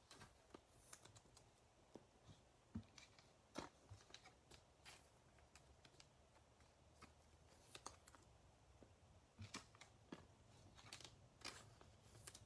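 Near silence broken by faint scattered ticks and soft clicks of trading cards being handled and set down on a table.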